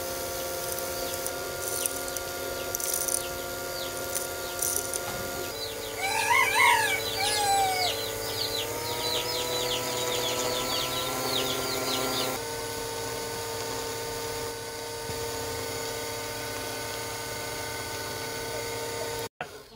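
Small electric motor of a miniature rice cleaning machine running with a steady whine through its pulley and belt drive. Its pitch shifts a couple of times and rises a little partway through. A rooster crows briefly about six seconds in, with clucking around it.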